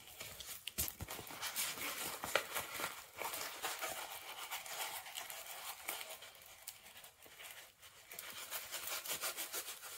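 Paper and plastic film crinkling and rustling as they are handled, a dense run of small crackles and ticks.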